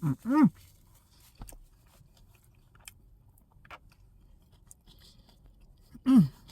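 A person chewing a bacon cheeseburger, with faint scattered mouth clicks. Short hummed 'mm' sounds of enjoyment come twice at the start and once near the end.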